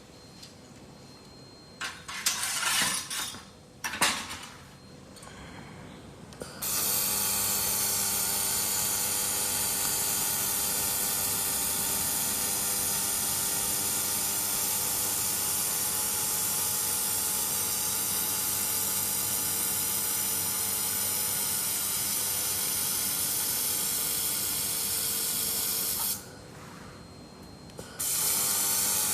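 Handheld fiber laser cleaning head firing on metal: a loud steady hiss that starts about six and a half seconds in, cuts out for about two seconds near the end, then starts again. A few short knocks and handling noises come before it.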